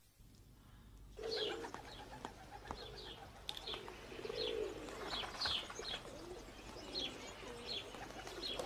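Pigeons cooing, with other birds chirping in short falling notes, starting about a second in.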